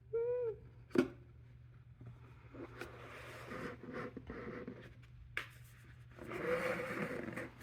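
Packaging being handled and opened: rustling and scraping, with two sharp knocks, one about a second in and one past the middle. A brief voiced sound comes at the very start.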